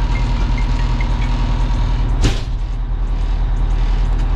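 Fire truck's engine idling steadily, with a single sharp bang about two seconds in.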